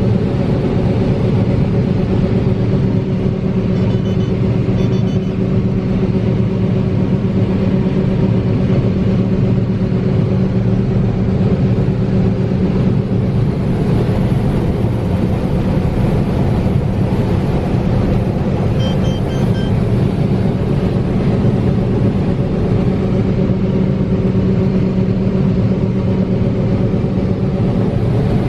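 Heavy farm machinery running steadily under load: a constant engine drone with a steady low hum and overtones that does not change.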